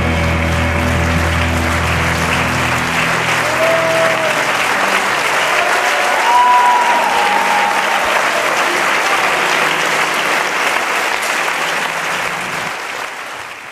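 Crowd clapping and cheering, with a few shouts or whistles rising out of it; music underneath drops away about three seconds in, and the whole sound fades out near the end.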